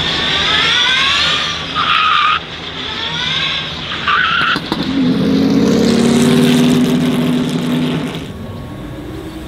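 Ford SuperVan 4's electric motors whining in repeated rising sweeps as the van slides and spins its tyres, with tyre skid noise. About halfway through a lower, steady drone takes over, then it fades a little after 8 s as the van moves away.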